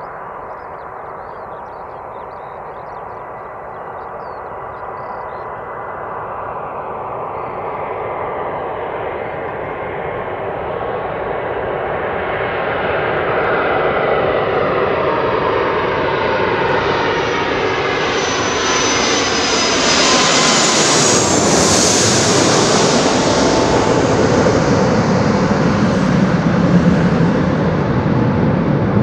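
Airbus A330-743L Beluga XL's two Rolls-Royce Trent 700 turbofans on final approach, growing steadily louder as it comes in low. A high engine whine peaks about three quarters of the way through as the aircraft passes over, then drops in pitch, leaving a deep rumble as it moves away.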